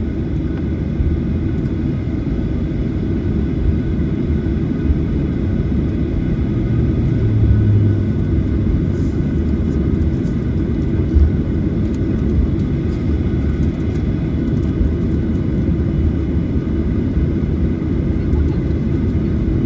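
Cabin noise of a Boeing 737-900ER taxiing: a steady low rumble from the CFM56 engines at idle and the cabin air supply, swelling briefly about seven seconds in.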